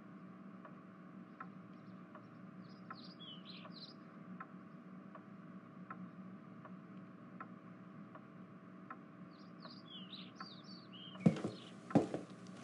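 Faint steady room ambience with a regular soft tick about every three-quarters of a second, like a clock, and two brief bursts of bird chirping, about three seconds in and again near ten seconds. Near the end, a few loud thuds.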